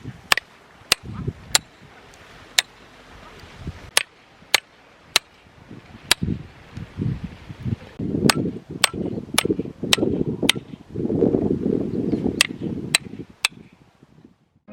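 Firewood being chopped or split: a series of sharp wooden knocks, roughly two a second and unevenly spaced. Low rustling noise builds up in the second half.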